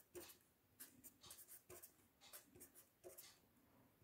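Faint scratching of a pen writing on paper, in a string of short, separate strokes.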